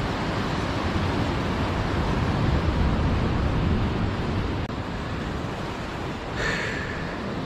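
Ocean surf washing over the rocks below a sea cliff, a steady hiss with wind buffeting the microphone. A brief sharper hiss comes near the end.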